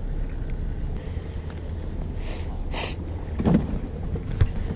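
Steady low rumble of a fishing boat's engine running, with wind on the microphone. Two short hissy bursts come about halfway through, then a dull thump and a sharp click near the end.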